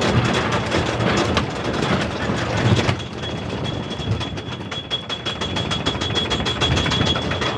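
Colossus wooden roller coaster train cresting its lift hill, clattering along the wooden track. About three seconds in the sound thins to a fast, even clicking with a thin high whine as the train rolls slowly across the top.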